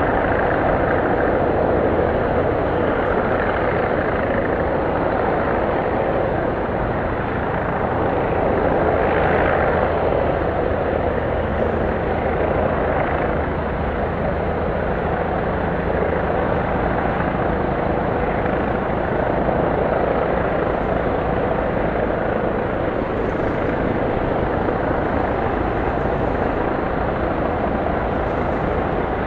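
Police helicopter circling overhead: a steady rotor and engine drone with a faint held whine, swelling and easing a little in loudness as it moves around.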